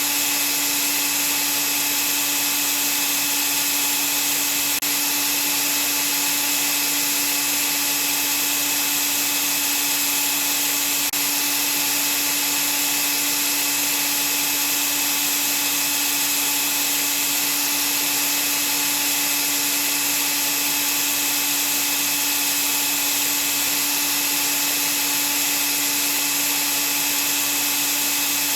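Vacuum cleaner running steadily: an even, unbroken hiss with a constant motor hum beneath it.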